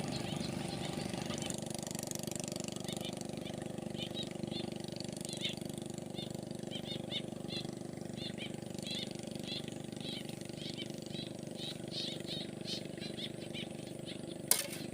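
A motor runs with a steady low hum, while short high chirps come again and again over it. A sharp click sounds near the end.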